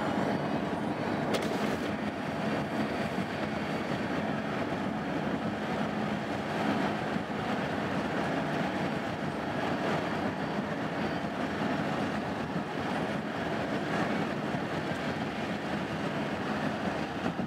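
Steady rumble of a double-stack intermodal freight train's wheels rolling on the rails, heard from a car moving alongside, mixed with the car's own road noise.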